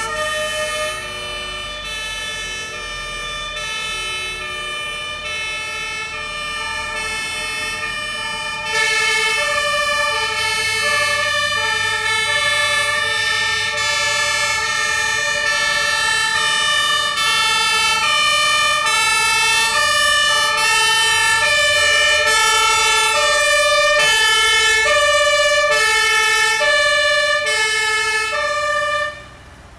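Two-tone sirens of several fire engines sounding at once, their high-low calls overlapping out of step. About nine seconds in, a nearer siren comes in louder, and the sirens cut off suddenly near the end.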